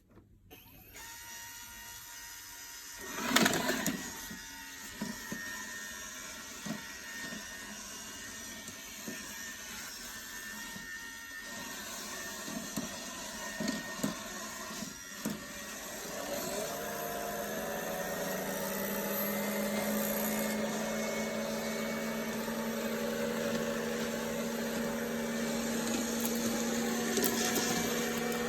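Electrolux Pure i9 robot vacuum running, with a knock and a few clicks, then a motor spinning up with a rising whine about halfway through and running steadily on.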